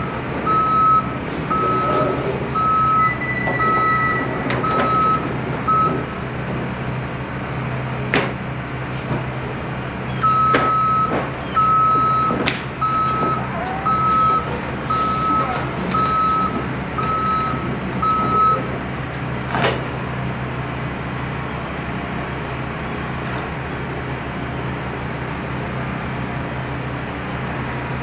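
Cat 316 hydraulic excavator unloading off a trailer: its travel alarm beeps about once a second in two runs over the steady sound of its diesel engine running. A few sharp metallic clanks come in between the beeps.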